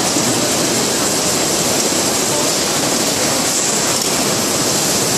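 Automatic carton case-packing machine running: a loud, steady mechanical din with a high hiss on top, without distinct strokes.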